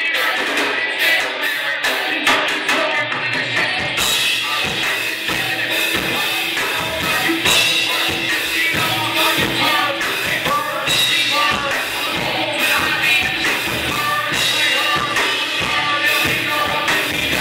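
Live rock band playing: drum kit, electric guitar and keyboard. The sound gets fuller about four seconds in, as the low end and the cymbals come in.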